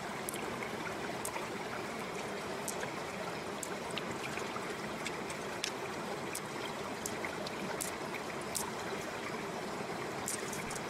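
A steady rush of running water, with scattered small wet clicks as pearls are picked out of the soft flesh of an opened freshwater mussel.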